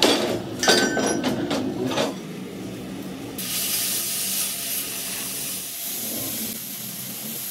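Clanks and scrapes of a thick steel plate being handled for about two seconds, then an oxy-acetylene cutting torch hissing steadily as it cuts the plate; the high hiss comes on sharply about three and a half seconds in.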